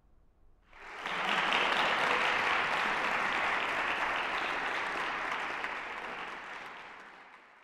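Audience applauding, breaking out sharply about a second in, holding steady, then dying away near the end.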